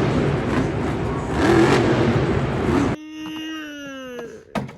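Monster truck engine revving, loud and dense, cut off abruptly about three seconds in. Then comes a single drawn-out tone falling slowly in pitch.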